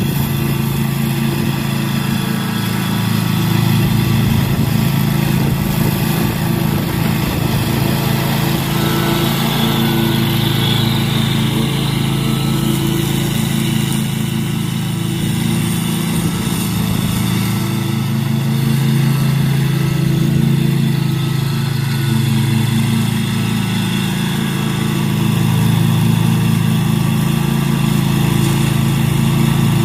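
Scag walk-behind commercial mower's engine running at a steady speed while cutting grass.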